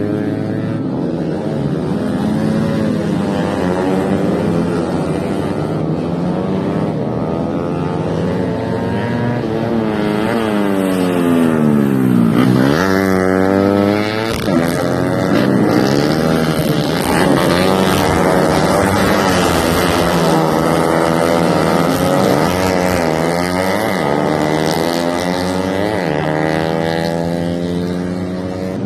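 Several tuned 125 cc four-stroke underbone racing motorcycles running together at full throttle, their engine notes overlapping and rising and falling as they shift gears and pass, with one deep drop and climb in pitch about twelve seconds in.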